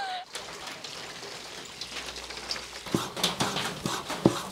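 Steady patter of rain, then about three seconds in a cleaver starts chopping raw pork on a cutting board in quick knocks, about three a second.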